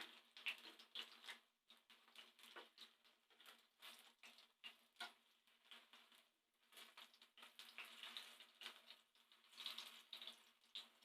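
Faint, irregular sizzling and crackling of cabbage fritters deep-frying in hot oil.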